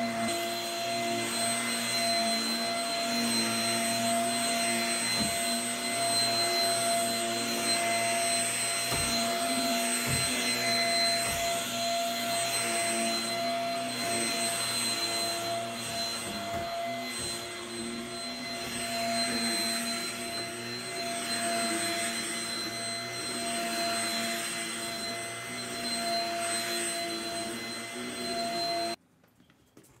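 Corded upright vacuum cleaner running on carpet: a steady motor whine over rushing air that swells and fades as it is pushed back and forth. It cuts off suddenly near the end.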